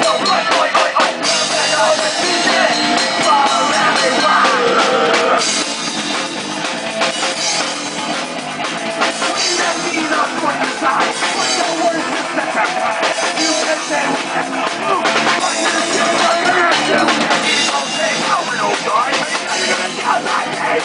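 Live street punk band playing loud and fast: distorted electric guitars, bass and a driving drum kit, with no vocals picked up.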